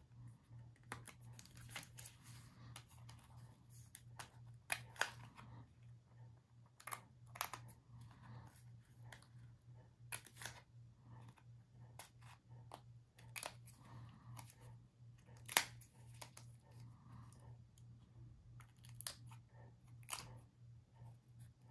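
Small fine-tipped craft scissors snipping around chipboard in many short, irregular cuts, faint and close, over a steady low hum.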